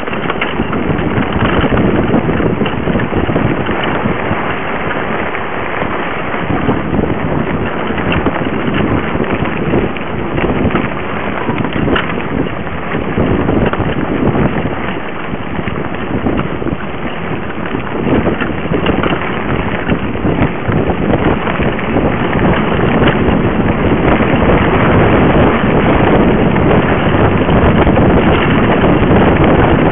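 Wind rushing over a bike-mounted camera microphone, mixed with the mountain bike's tyres rumbling over a dirt trail and the bike rattling, with scattered knocks from bumps.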